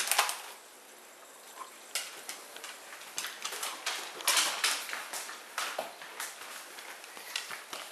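A plastic treat package crinkling and rustling at the start, then irregular light clicks and crackles through the rest: a husky's claws on a hardwood floor and more wrapper rustling.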